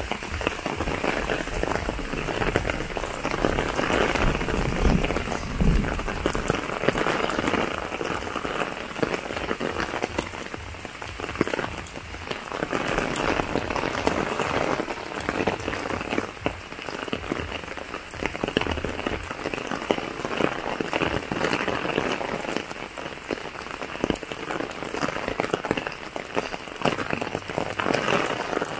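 Steady rain falling, a dense even hiss of drops with many small close ticks, with no let-up.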